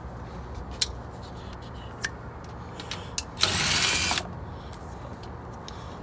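Cordless drill spinning out a bolt on a refrigeration filter-drier shell cover, in one burst of under a second about three and a half seconds in, over a steady low machinery hum.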